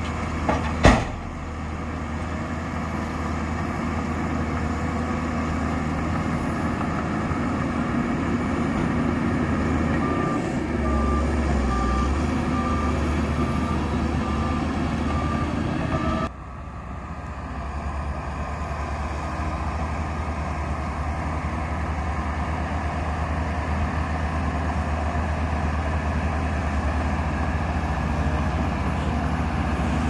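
Heavy earthmoving machinery's diesel engines running steadily, with a sharp knock about a second in. Midway a reversing alarm beeps steadily for about six seconds. The sound then drops abruptly and the engines carry on.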